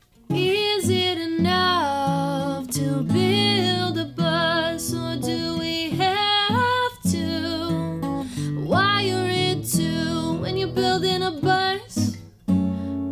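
A woman singing to her own acoustic guitar accompaniment; voice and guitar start together just after the beginning.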